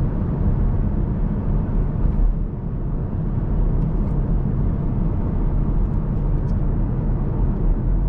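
2015 Chevrolet Camaro V6 under way: steady engine and road rumble heard from inside the cabin.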